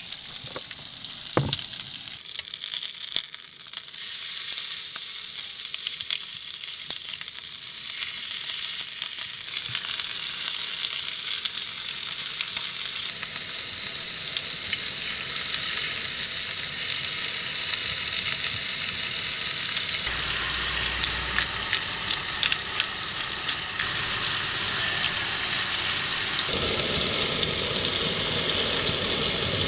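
Meat sizzling as it fries: a steady crackle full of small pops and spits that grows louder through the stretch.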